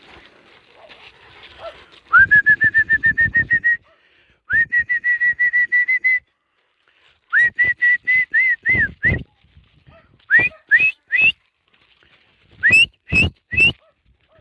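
A whistle blown to call the dogs: two long warbling blasts starting about two seconds in, then a run of short blasts, and near the end groups of three short blasts that rise slightly higher in pitch.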